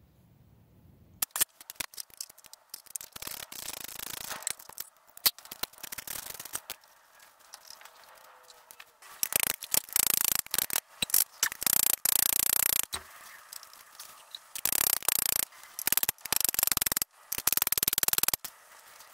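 Slip-on exhaust silencer being twisted and worked off the motorcycle's link pipe: irregular metal scraping and rubbing with sharp clicks, coming in spells and loudest in the second half.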